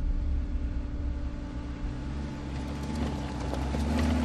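Mercedes-Maybach G 650 Landaulet's twin-turbo V12 running at low speed off-road, with the tyres crackling over stones and dirt. It grows louder near the end as the vehicle comes closer.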